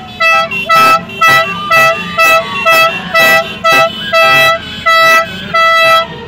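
Vehicle horn honking in a quick rhythmic series of short toots, about a dozen on one steady pitch, the last few held a little longer: celebratory honking.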